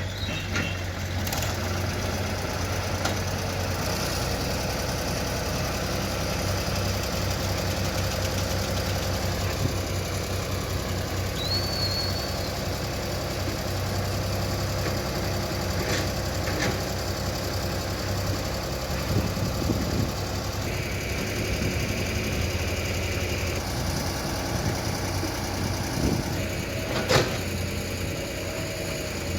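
Diesel engines of a backhoe loader and tractors running steadily at low revs, with a few sharp knocks, the loudest near the end.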